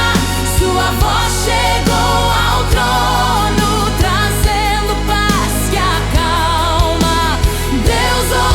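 Gospel worship song with a steady drum beat under a sustained bass, and a melody sung with vibrato.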